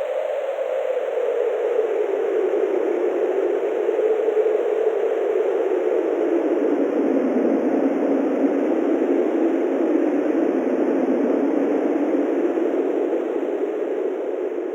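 Strong steady wind sound effect: a continuous rushing wind with a hollow howl that slowly sinks in pitch and then levels off, easing a little near the end.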